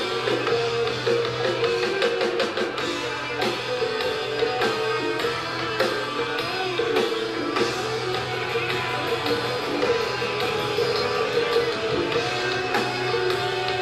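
Live rock band playing: electric guitar, electric bass and drum kit in a dense, steady jam.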